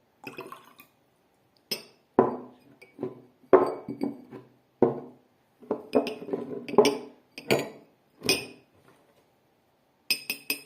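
Drinking glasses holding different amounts of water struck with a small stick, one after another in an uneven rhythm, each ringing briefly at its own pitch. Near the end comes a quick run of taps: the less water in a glass, the higher its note.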